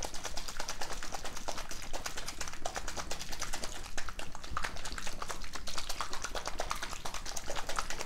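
So Slime plastic cup with water and slime powder inside being shaken hard by hand to mix the slime, giving a fast, continuous clicking rattle.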